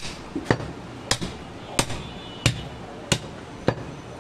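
Cleaver chopping goat meat on a wooden log chopping block: about seven sharp, evenly spaced chops, one roughly every two-thirds of a second.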